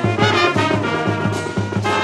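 Brass band playing an Afrobeats tune: trumpets and trombones sounding sustained chords over a steady drum beat.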